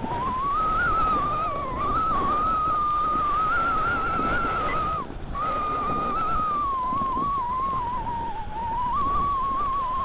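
A single whistling tone that wanders slowly in pitch and drops out briefly about halfway through, over a steady rush of wind and snow noise as a skier speeds down a slope with the camera moving.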